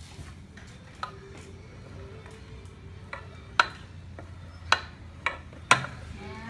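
Sharp metallic clicks and taps, about five spread out, the loudest a little past the middle and near the end, as a bare Villiers engine crankcase's crankshaft and connecting rod are moved by hand. A low steady hum lies underneath.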